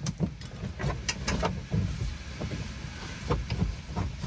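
Plastic rear side trim panel of a Mitsubishi Pajero being tugged and handled against its retaining clips: a run of irregular knocks, clicks and rubbing.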